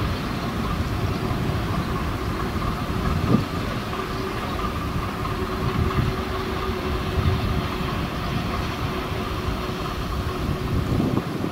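DB Class V 65 diesel locomotive running at low speed while hauling a short train of passenger coaches, its diesel engine steady, with wheels on the rails. There is a single sharp knock about three seconds in, and a steady whine joins about four seconds in.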